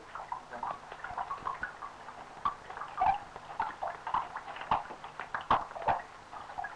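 A dog moving about: a run of light, irregular taps and scuffs from its paws, with a few sharper knocks about three and five and a half seconds in.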